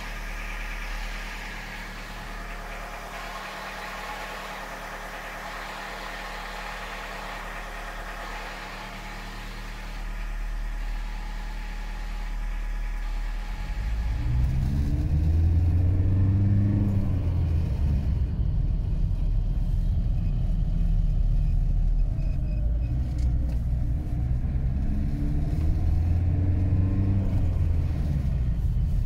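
1989 Volkswagen Caddy running with a bad gearbox bearing: a steady whine with many overtones, then about 14 seconds in it turns to a louder, deeper rumble that rises and falls.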